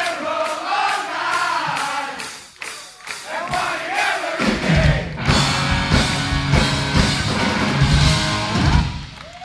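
Crowd voices singing or chanting a melody for the first few seconds. About four seconds in, a hard rock band with electric guitars, bass and drums comes in loudly and plays a short riff with heavy drum hits, stopping just before the end.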